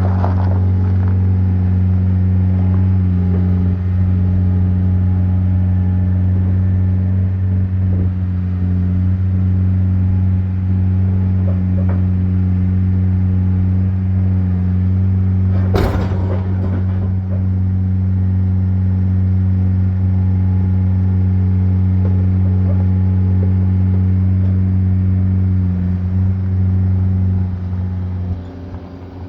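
Diesel engine of a skid steer running steadily at working speed, with one sharp metallic clank about halfway through and the engine easing down near the end.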